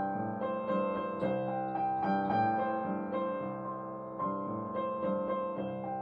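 Upright piano played solo: chords and broken-chord figures, a new note or chord struck about twice a second and left to ring.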